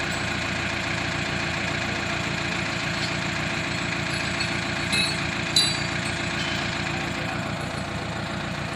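Diesel engine of heavy equipment running steadily, with two short, sharp metallic knocks about five seconds in.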